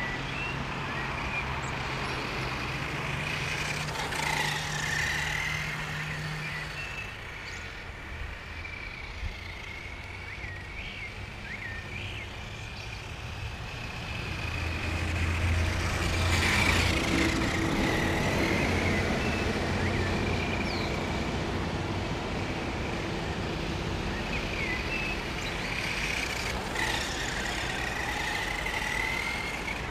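Brushed electric motor and drivetrain of a Helion Dominus 1/10 short-course RC truck whining. The pitch rises and falls again and again as the truck speeds up and slows down. It is loudest about halfway through.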